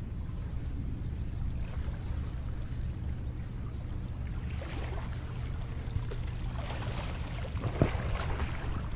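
Seawater washing and splashing against the shore over a steady low wind rumble on the microphone; the splashing swells from about halfway through.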